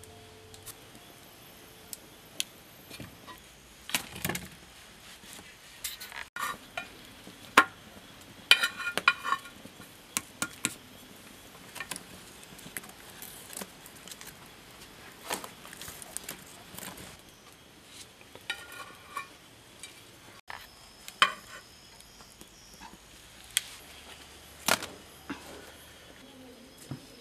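Roti cooking on a flat iron pan over a wood fire: scattered sharp clicks and knocks, with a few short runs of metallic clinks, over a faint steady background.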